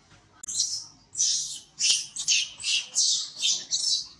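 Baby long-tailed macaque screaming in distress: about eight shrill, high-pitched cries in quick succession, starting about half a second in.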